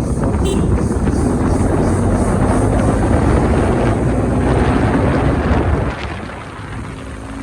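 Motorcycle running on the move, with wind buffeting the microphone; it eases off and gets quieter about six seconds in.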